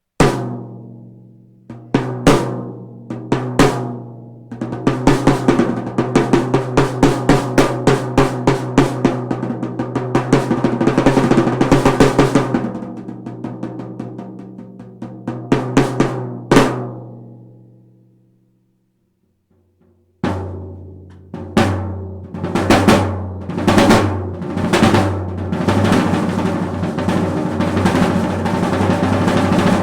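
A Mapex Storm drum kit being played. A few single hits are followed by fast rolls and fills on drums that ring at a steady pitch, dying away to silence. After a short pause, playing resumes on lower-pitched drums with hits and rapid rolls.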